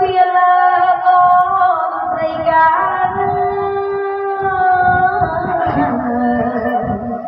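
A woman singing a traditional Khmer wedding song through a microphone in long held notes, with a bowed two-string Khmer fiddle (tro) sounding alongside. Her pitch steps down to a lower held note about five seconds in.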